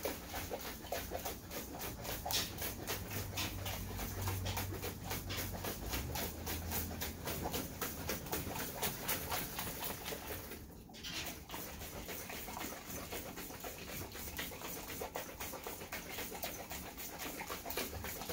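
Rice and water shaken hard in a lidded mason jar, sloshing and rattling in a quick, even rhythm. It stops briefly about ten seconds in. This is the rice wash: rinsing rice in water to start a lactic acid bacteria culture.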